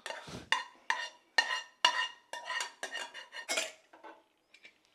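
Steel spoon scraping and knocking against a nonstick frying pan as cooked soya chunks are scooped out, about eight ringing strokes roughly two a second that stop a little before the end.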